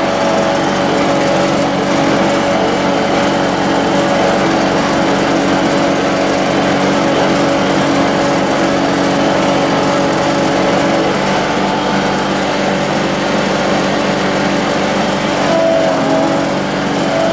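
John Deere X585 garden tractor's V-twin engine running steadily at a constant speed as the tractor drives, heard close up from the operator's seat.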